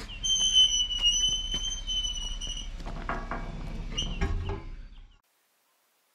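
Red steel pipe gate's hinge squealing in one long, slightly wavering high note as the gate swings shut, then the gate clanking and rattling, with one heavier knock, as it comes to rest. The sound cuts off suddenly about five seconds in.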